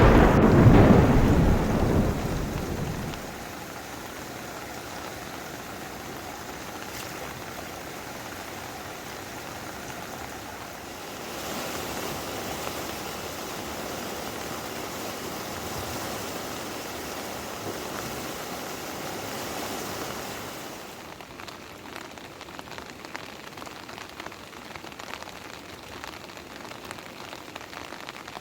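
A thunderclap's rumble dying away over the first few seconds, then steady rain, heavier for a stretch in the middle and lighter near the end with scattered drips.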